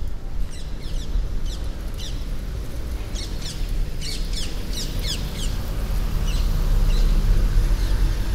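Small birds chirping: many short, quick downward chirps, thickest in the middle and thinning out later. Under them runs a steady low rumble of city background that grows louder near the end.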